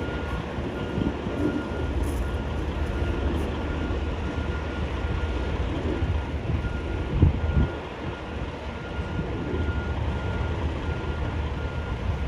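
Semi truck backing up slowly, its reverse alarm beeping at a steady even rhythm over the low running of the diesel engine. There is a low thump about seven seconds in.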